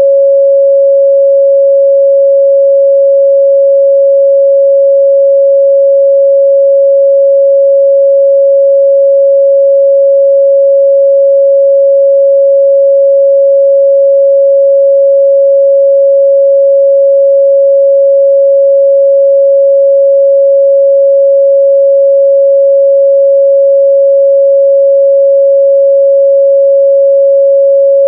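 Pure 553 Hz sine-wave test tone, a single steady loud pitch.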